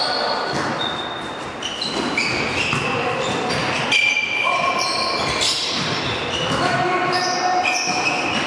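Volleyball players' sneakers squeaking on a hardwood gym floor during a rally: many short squeaks at shifting pitches, echoing in a large hall, with a sharp hit about four seconds in.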